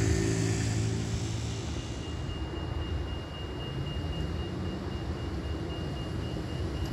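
Street traffic: a vehicle's engine hum fades out in the first second or two, leaving a low rumble, with a steady high-pitched whine starting about two seconds in.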